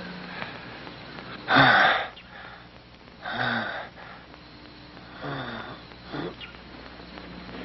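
An injured man breathing hard in pain: four pained breaths, each with a short falling groan, the loudest about a second and a half in.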